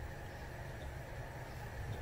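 Faint handling noise as hands work on the wheelchair drive unit's steering column: a steady low rumble with a couple of light ticks.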